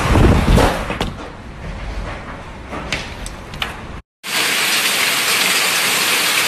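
Hailstorm: gusty wind buffeting the microphone, with a few sharp cracks of hailstones striking. After a brief cut about four seconds in, a steady, dense hiss of heavy rain and hail pelting down.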